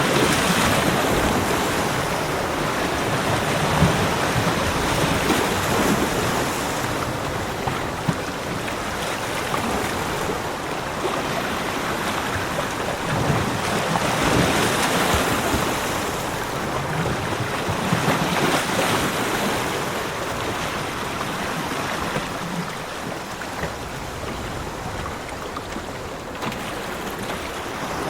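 Ocean surf washing onto a beach: a continuous rush of breaking waves that swells and eases every few seconds.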